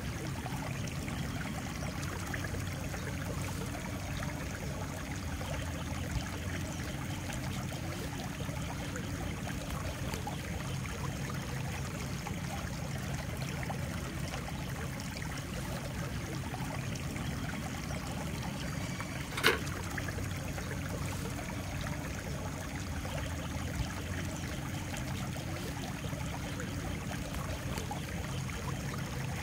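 Steady rushing of flowing water, with a single sharp click about two-thirds of the way through.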